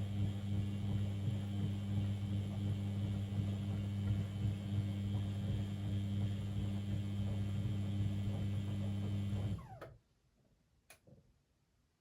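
Beko WML 71433 NP washing machine running with a steady low hum that dies away about nine and a half seconds in, followed about a second later by a single click.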